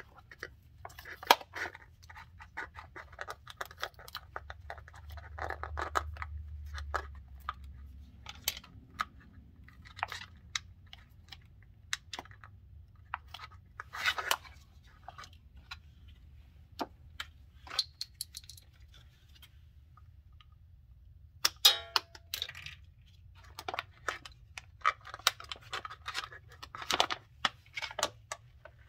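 Plastic pouch of AMSOIL 75W-90 gear oil crinkling and crackling in gloved hands as it is squeezed to push oil into a truck's rear differential, with scattered clicks. A faint low hum runs underneath.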